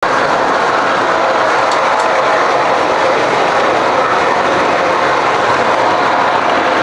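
MTH model subway train running on three-rail O-gauge track, a steady rolling noise of wheels and motor.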